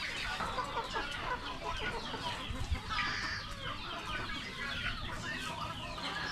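A flock of Rhode Island Red chickens clucking, many short calls overlapping in a continuous chatter.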